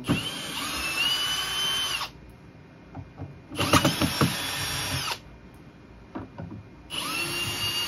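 A drill backs out the screws that hold a PA speaker's driver, in three runs of about a second and a half each. The motor whines up to speed and holds steady each time. A few knocks come during the second run.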